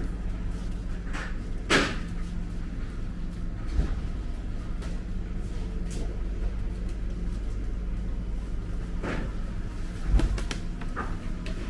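Supermarket refrigerated display cases humming steadily and low, with a few scattered clicks and knocks of handling. The sharpest knock comes about two seconds in, and a cluster near the end fits a glass fridge door being opened.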